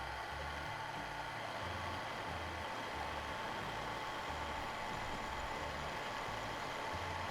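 A steady whirring of a running machine or power tool, over background music with a regular bass pattern.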